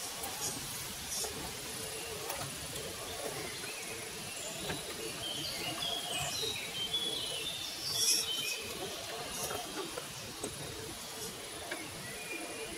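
Reely Free Men RC crawler's electric motor and gearbox whining, wavering as it crawls over rocks through a shallow stream, over a steady hiss of running water. Birds chirp briefly in the middle.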